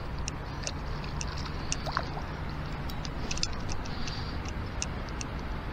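Fishing reel ticking, about two sharp clicks a second, while a hooked fish is played close to a kayak, over a steady low rumble.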